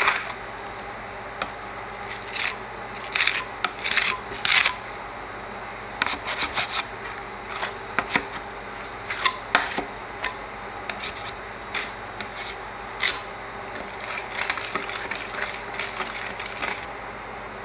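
Metal spatulas scraping and spreading frozen ice cream mixed with crushed Cheetos across a steel cold plate, in irregular rasping strokes, some coming in quick clusters.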